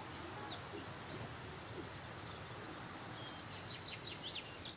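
Faint steady background hiss with a few faint bird chirps. A slightly louder cluster of chirps comes about three and a half seconds in.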